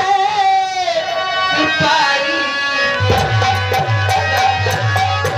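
A woman singing a long, wavering sung line in a folk-theatre style over a steady held instrumental drone. About three seconds in, drums come in with a fast, even beat.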